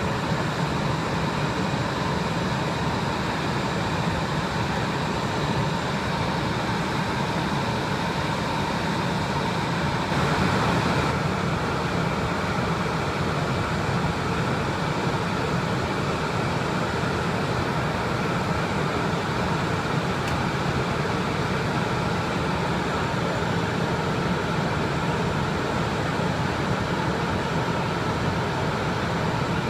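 Cockpit noise of a Cessna Citation Mustang 510 business jet in flight: a steady rush of airflow and twin-turbofan hum with faint steady whine tones, swelling briefly about ten seconds in.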